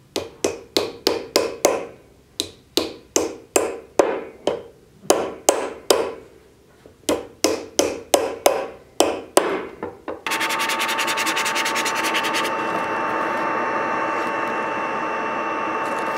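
A hammer driving a wooden wedge into the top of an axe handle through the head's eye to lock the head on: runs of sharp strikes, about three a second, with short pauses. About ten seconds in, a power tool starts suddenly and runs steadily.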